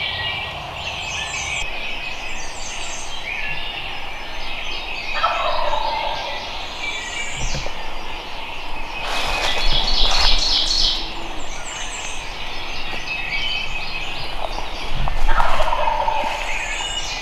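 Wild turkey gobbler gobbling twice, about five seconds in and again near the end, with songbirds chirping throughout and a brief louder call about ten seconds in.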